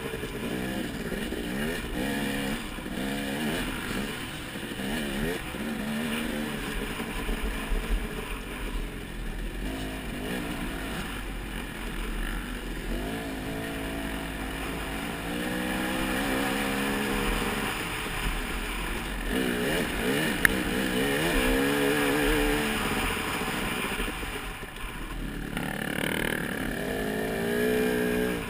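Off-road motorcycle engine under way, revving up and down, its pitch repeatedly climbing and then dropping back as it changes gear or eases off. There is a single sharp click partway through.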